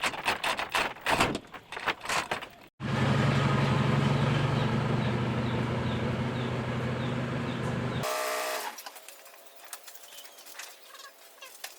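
Rapid clattering knocks, then after a cut a motor engine running steadily for about five seconds, then a quieter stretch with sparse ticks and faint bird calls.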